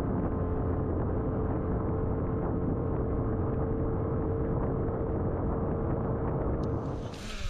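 Small boat's outboard motor running at speed, a steady engine tone over rushing wind and water noise, dropping away near the end as the throttle comes off.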